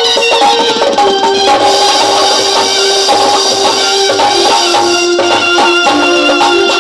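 Live folk-stage music: a sustained melody of long held notes stepping down in pitch over a steady, fast beat of drums and small percussion.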